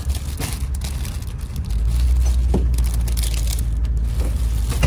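Clear plastic wrapping on a packaged pillow and blanket crinkling under a hand, over a steady low aircraft-cabin rumble that grows louder about two seconds in.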